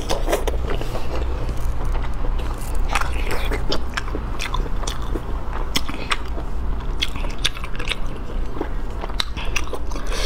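Close-miked chewing and biting of spicy stir-fried sea snail meat, with many short sharp wet clicks, over a steady low hum.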